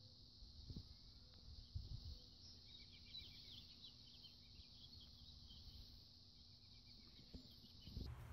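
Faint outdoor ambience: a steady high insect drone with scattered small bird chirps a few seconds in, over a low rumble and a couple of soft thumps.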